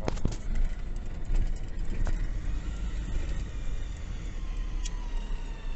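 GAZon Next truck's diesel engine running on the move, heard from inside the cab. A faint thin whistle sits over the engine rumble; the driver is unsure whether it comes from an idler roller, a belt or the turbocharger.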